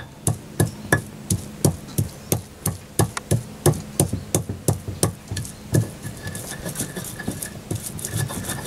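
Stone pestle pounding spice paste in a stone mortar (Indonesian ulekan and cobek), with dull knocks about three a second. Near the end the strikes turn lighter and less regular as the pounding gives way to grinding.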